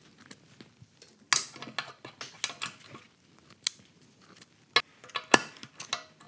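Small steel parts and hand tools clicking and ticking against each other and the valve spring compressor as valve locks are handled during a valve spring swap on a cylinder head. Sharp irregular clicks, the loudest about a second and a half in and again near the end.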